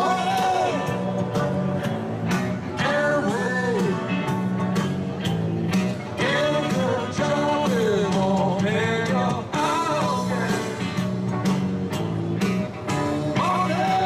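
A rock song with a sung melody over guitar, bass and a steady drum beat, played back over a loudspeaker.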